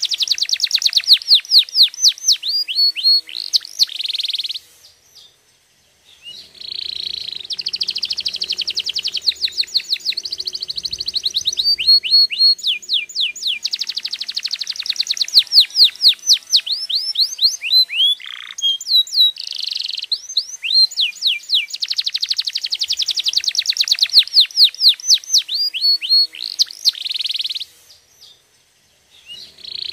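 Domestic canary singing: long phrases of fast repeated trill notes and quick falling whistled sweeps. The song breaks off twice for a second or two, about five seconds in and near the end.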